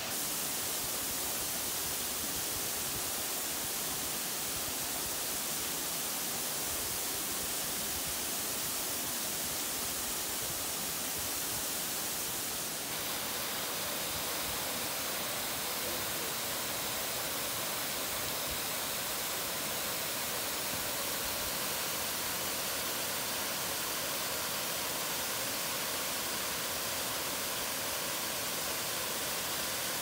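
Steady hiss and rush of a small waterfall pouring into a pool, a constant wash of falling water; its tone shifts slightly about 13 seconds in.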